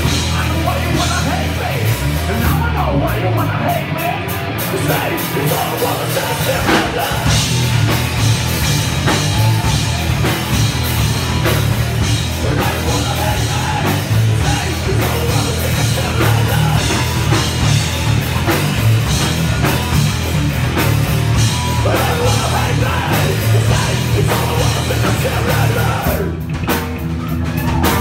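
Live heavy rock band playing loudly: distorted electric guitar and drum kit, with a vocalist yelling and singing into a microphone.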